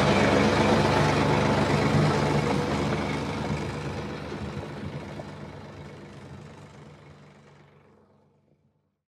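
An engine running steadily with a low hum, fading out gradually to silence over about eight seconds.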